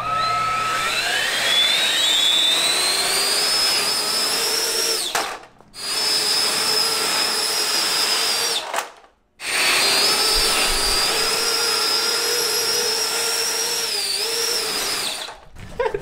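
Three electric ducted fans on a Roomba-based tricopter spool up with a rising whine and then run at a steady high whine as the craft hovers. The sound cuts out briefly twice, dips in pitch once near the end, and then stops.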